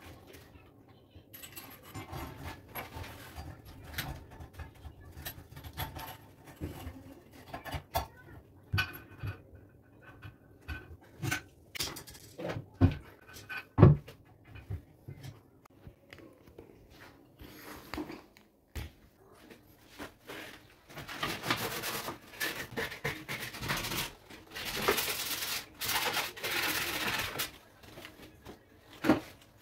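Scattered knocks and clicks of a washbasin, its plastic drain trap and flexible tap hoses being handled, with one sharp knock about fourteen seconds in. Near the end, about six seconds of loud, rough hissing noise.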